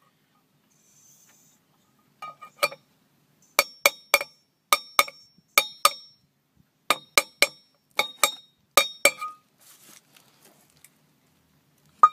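Mallet taps on a Speedi-Sleeve installer cup, driving the thin steel repair sleeve onto a crankshaft's rear oil-seal surface. There are about sixteen short, ringing metallic taps, mostly in quick pairs or threes, starting about two seconds in, with one more tap near the end.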